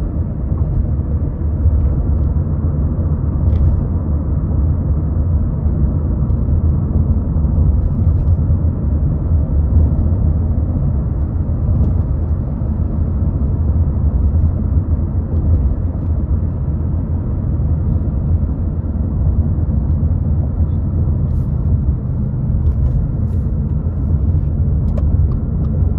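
Steady low rumble of a car driving on pavement, engine and tyre noise heard from inside the cabin; the car is on snow tires.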